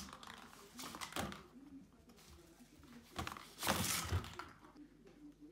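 A kitten scrambling and thumping on a wooden floor as it plays around a plastic track toy. There are two bursts of scuffling, a short one about a second in and a louder, longer one a little over halfway through.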